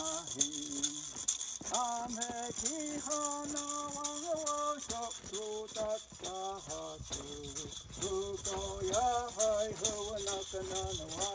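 Background music: a melody of held notes that glide between pitches, over fast, steady high percussion.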